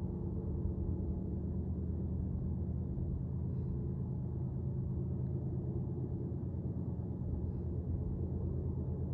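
Steady low drone of the diesel locomotives on a loaded coal train, heard from a distance while they work hard up a steep grade. No sudden events break it.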